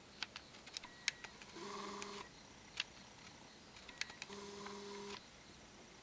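Camera lens motor running in two short steady buzzes, one about half a second long and one about a second long, as the picture refocuses. A scatter of faint clicks from handling comes before them.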